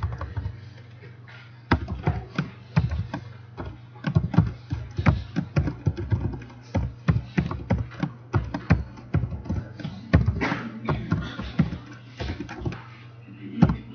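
Typing on a computer keyboard: keys clicking in quick irregular runs, starting after a short pause, over a steady low hum.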